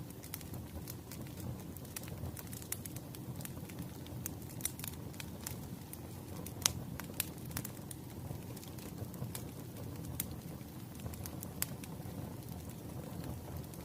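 Wood fire burning: a steady low rumble of flames with irregular sharp crackles and pops from the burning logs, one louder pop about halfway through.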